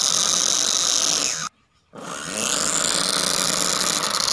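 Small DC hobby motor driving a matchbox toy tractor, running with a steady whine. The sound cuts out abruptly about one and a half seconds in, then the motor spins back up with a rising pitch and runs steadily again.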